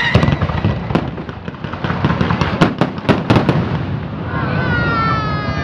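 Fireworks display: a rapid string of sharp bangs and crackles over a continuous low rumble of explosions for about three and a half seconds, then a falling whistling tone near the end.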